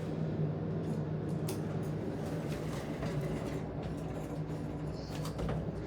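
Elevator car travelling between floors: a steady low hum with a rumble, and a few light clicks near the end.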